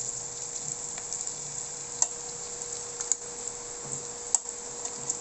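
Dried fish (tuyo) sizzling steadily as it fries in a stainless steel pan, with metal tongs clicking sharply against the pan three times as the pieces are turned.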